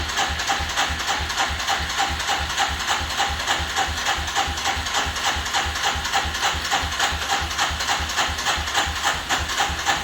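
Electric starter cranking the 1985 Suzuki LT300's single-cylinder four-stroke engine over steadily, with an even rhythmic chugging of several pulses a second. The engine does not fire yet after sitting unused for a couple of weeks.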